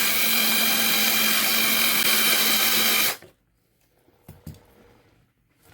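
Small power drill running steadily as it drills out the rivet post on a die-cast toy car's base, then stopping abruptly about three seconds in. The bit is dull and slow to cut through the rivet.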